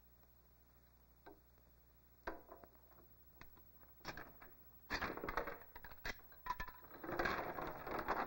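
Wooden knocking and clatter: a few sparse clicks at first, then denser knocking and scraping from about five seconds in, like a ladle or hands working inside an empty wooden water tub.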